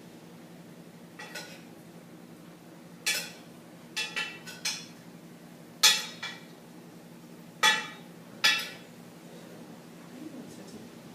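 A metal spoon or utensil knocking and clinking against a cooking pot, about nine sharp ringing strikes at irregular intervals. The loudest come around the middle and toward the end.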